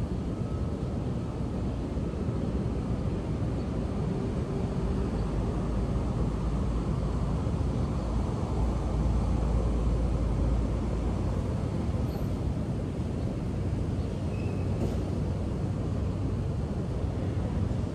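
Steady low rumble of city street traffic, swelling for a couple of seconds about nine seconds in as a truck passes.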